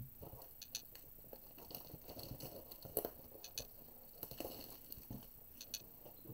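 A sealed cardboard trading-card blaster box being opened by hand: faint crinkling of its plastic wrap and small clicks and scrapes as fingers pick at the seal and lift the flap, with a sharper click about three seconds in.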